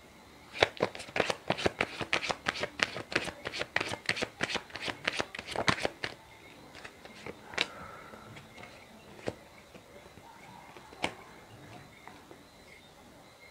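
A deck of tarot cards being shuffled by hand: a quick run of card clicks, about four or five a second, for roughly five seconds. After that, a few single card snaps as cards are drawn and laid down.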